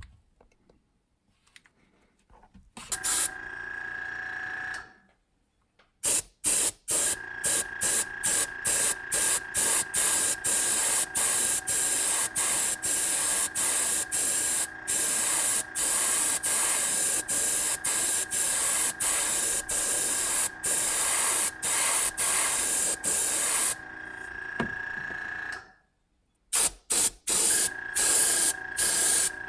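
Airbrush spraying paint, its air hiss broken into quick on-off bursts about twice a second, over the steady whine of its small air compressor. The spraying and whine start about three seconds in and stop briefly twice, near six seconds and near the end.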